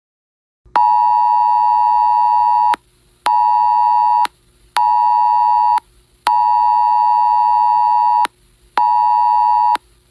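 Phone's Wireless Emergency Alert attention signal, the two-tone alarm beep that announces a tornado warning. It starts just under a second in and runs in a long-short-short pattern: a two-second beep, then two one-second beeps with short gaps, repeated.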